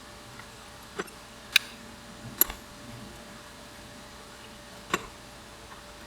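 Four sharp, separate clicks of tools and bike parts being handled during disassembly, the second the loudest, over a low steady background.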